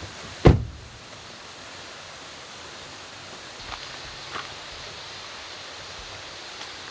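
A car door shutting with a single heavy thud about half a second in, followed by two light clicks, over a steady rushing hiss.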